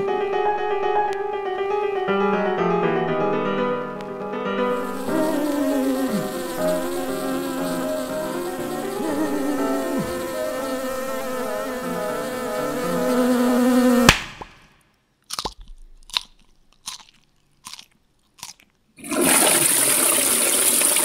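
Music with an insect-like buzzing laid over it from about four and a half seconds in; the music stops with a sharp crack about fourteen seconds in. A few short, separate sounds follow, and near the end a pull-chain toilet flushes with a loud rush of water.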